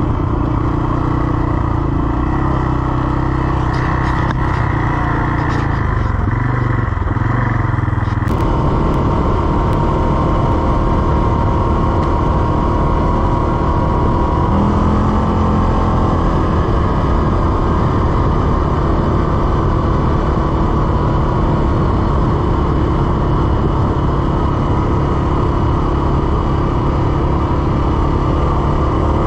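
CFMoto CForce 600 ATV's single-cylinder engine running steadily under way. A rush of noise fills in about eight seconds in, and the engine note shifts a few seconds later.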